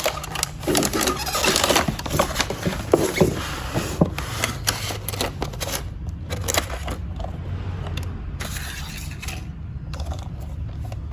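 Irregular light clicks and scrapes from a toy bus being handled, busiest in the first several seconds and sparser after, over a low steady hum.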